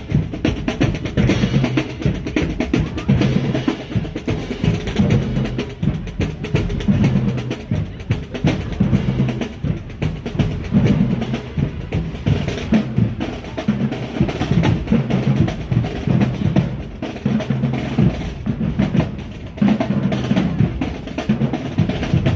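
Marching band drumline playing a cadence: rapid snare drum strokes and rolls over a pattern of pitched bass drum notes.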